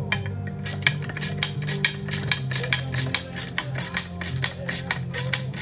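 A quick run of sharp metallic clicks, about five a second, from hand-tool work on the bolts and metal parts of a snowmobile ski wheel saddle, over radio music.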